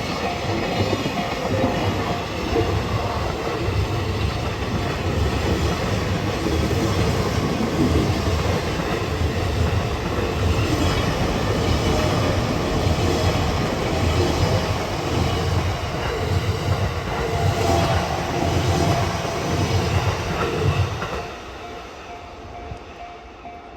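Takasaki Line electric train running on the rails with wheel clatter and a heavy rumble, slowing down because the special signal light for the level crossing ahead is flashing. The train noise drops off sharply near the end.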